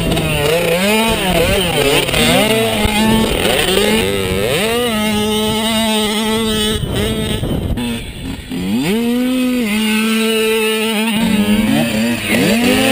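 Dirt bike engine revving as it is ridden hard around a dirt track, its pitch repeatedly rising, holding, then dropping.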